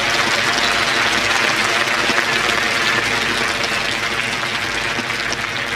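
Golf gallery applauding steadily, a dense patter of many hands clapping, greeting the player announced on the first tee.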